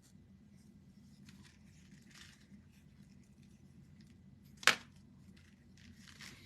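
Faint scratching and rustling of hands working with paint and a wooden craft piece, with one sharp click a little over two-thirds of the way through.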